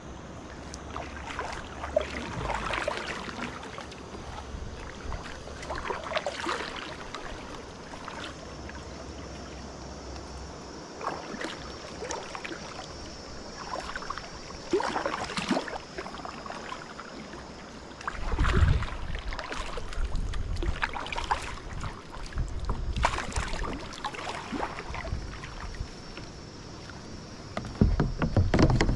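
River water splashing and sloshing at the bank in irregular bursts, with gusts of wind rumbling on the microphone.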